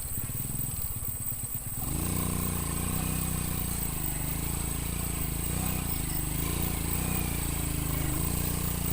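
Motorcycle engine running, getting louder about two seconds in and then rising and falling slightly in pitch as it rides along.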